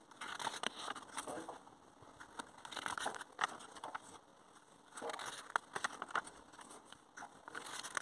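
Sheets of paper in a printed instruction booklet rustling and crinkling as the pages are leafed through by hand, in about four bursts a couple of seconds apart.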